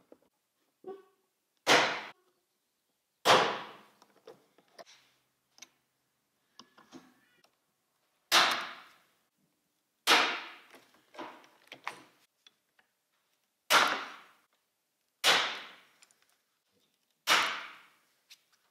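Rivet gun setting pop rivets through the stainless steel trim of a car hardtop: seven sharp snaps, one as each rivet's mandrel breaks, each ringing off briefly, with faint clicks of the tool between.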